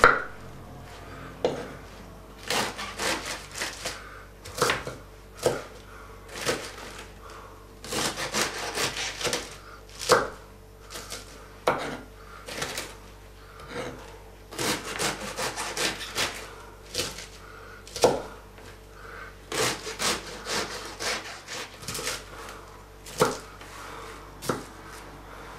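Knife slicing napa cabbage into strips on a wooden cutting board: runs of quick cuts, each ending in a knock of the blade on the board, with short pauses between the runs.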